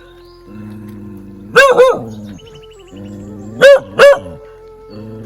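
A dog barking in loud double barks, two pairs about two seconds apart, over background music of low held tones.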